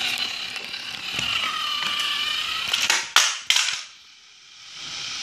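Small electric motor of a battery-powered toy train whining as it runs, its pitch dipping and rising. About three seconds in, a few sharp knocks as the engine comes off the track ramp and hits the tiled floor, then the motor whirs on, growing louder near the end.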